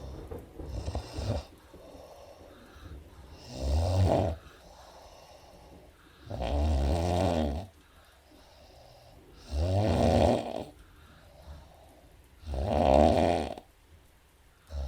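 A sleeping woman snoring: four long snores about three seconds apart, after a shorter one at the start.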